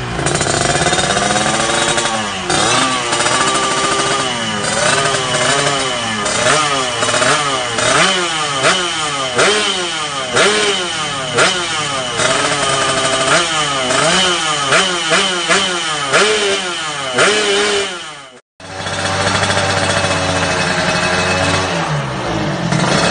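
Two-stroke motorcycle engine through an ABRT20 aftermarket racing exhaust, revved in repeated throttle blips, each pitch rising and falling, quicker blips toward the middle. After a sudden break, another two-stroke bike runs steadily, then revs up briefly near the end.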